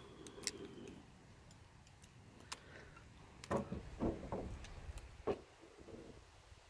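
Metal poles of a folding camping table's base frame clicking and knocking lightly against each other as the frame is unfolded: a handful of faint, scattered clicks, more of them in the second half.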